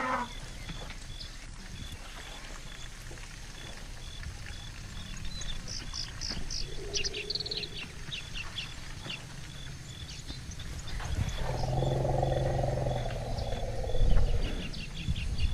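Birds chirping in quick series. About eleven seconds in, a low, drawn-out animal call lasts some three seconds.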